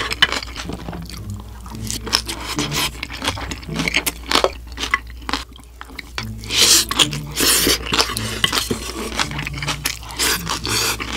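Close-miked eating sounds: crunchy mouthfuls of mixed rice being chewed, with a spoon scraping against a glass bowl. The crunching is loudest about six and a half to seven and a half seconds in.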